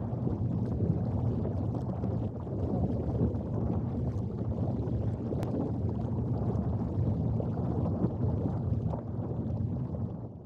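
Steady low rumble of wind and rough sea surf, easing a little at the very end.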